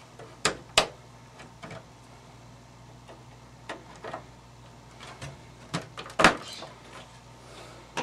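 A scattering of sharp clicks and knocks as RAM modules are pushed into the memory slots of a beige Power Mac G3 motherboard, the loudest about six seconds in.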